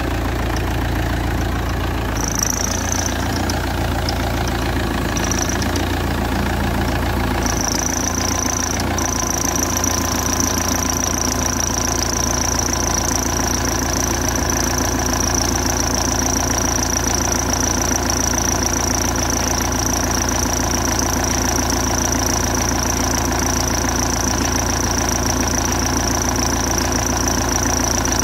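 Car engine idling with a thin high-pitched squeal from the alternator belt, heard briefly twice and then continuous from about eight seconds in. The noise is the sign of a belt tensioner that is starting to give way.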